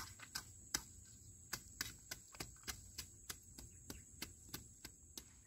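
Short machete blade chopping and scraping weeds out of the soil of a chili bed, a quick, even run of sharp strokes about three a second.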